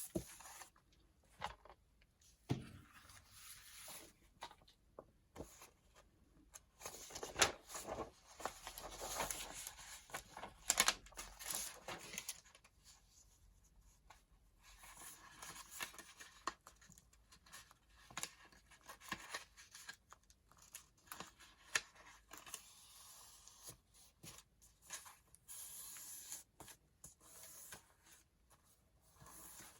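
Sheets of craft paper being handled: irregular rustling, sliding and crinkling of paper in short bursts with brief pauses, the loudest bursts around 7 to 12 seconds in.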